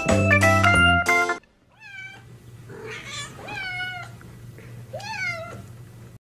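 Plucked guitar music that stops about a second and a half in, followed by a cat meowing about four times, short meows that bend up and down in pitch.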